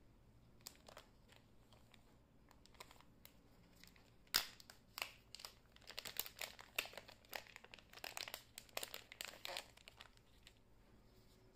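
Close handling noise: a run of crinkles and sharp clicks that begins about four seconds in, with the sharpest click first, and dies away near the end.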